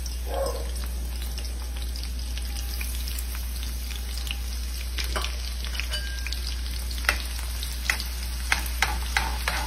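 Chopped onion and garlic frying in hot vegetable oil in a wok, a steady sizzle just after the onion goes in. Sharp ticks and pops come through it, more often in the last few seconds.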